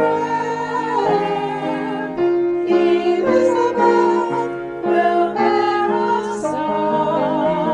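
A voice singing with vibrato, accompanied by piano chords.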